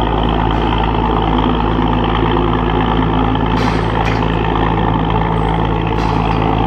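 A large engine running steadily at one constant speed, a low even drone, with a few short hisses about three and a half, four and six seconds in.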